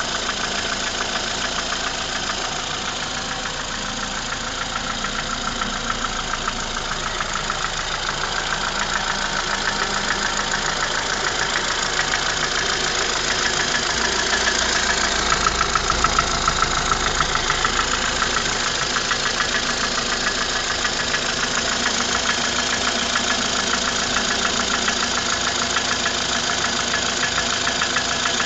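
Ford Fusion engine running at idle with a rapid, even knock ticking along with it: an extraneous knock from the engine. It gets a little louder in the middle, then settles.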